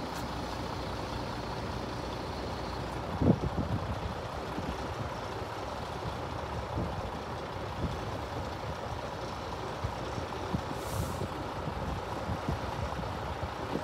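Steady road-traffic noise with a heavy lorry's engine running, and a short, louder sound about three seconds in.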